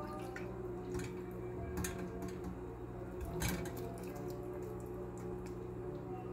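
Cooking fat pouring from a stainless saucepan through a mesh strainer, with a few soft knocks and clinks as the confit onions slide out of the pan into the strainer, the strongest about three and a half seconds in. A steady low hum runs underneath.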